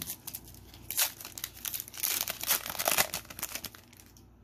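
Foil wrapper of a Pokémon trading card booster pack crinkling and tearing as it is opened, loudest about a second in and again between two and three seconds, then dying away near the end.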